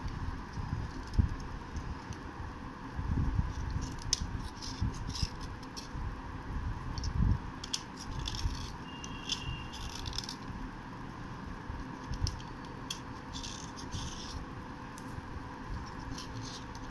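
A metal blade scraping the face of a soft slate triangle in short, dry, irregular strokes, with small crackles and clicks as chalky flakes come off, over a faint steady hum.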